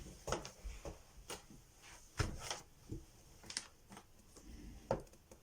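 A few faint, separate clicks and knocks, roughly one a second at irregular spacing, over a quiet room hum; the sharpest come a little after two seconds and near the end.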